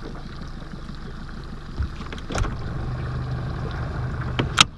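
Low steady hum of an electric trolling motor on a boat, running for about two seconds over a background wash of wind and water. A knock comes just as the hum starts, and a louder, sharp knock comes as it stops near the end.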